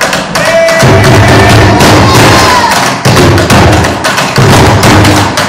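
Several recycling bins played as drums, beaten hard and fast in a bhangra rhythm: a dense stream of loud, deep thumps.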